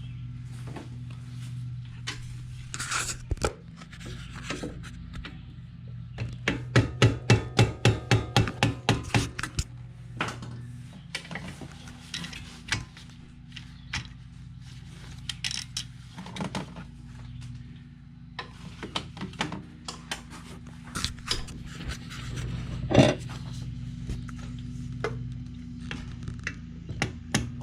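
Hand tools working the starter's mounting bolts: a run of evenly spaced clicks, about four a second, for a few seconds, then scattered clicks, scrapes and knocks with one loud knock near the end, over a steady low hum.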